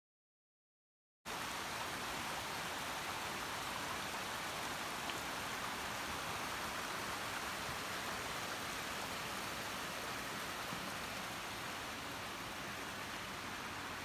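Steady rushing of a mountain stream flowing over rocks, starting abruptly about a second in after silence.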